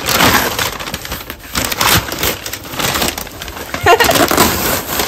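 Paper and plastic wrap being torn and crumpled off a taped cardboard box, in irregular crackling rips.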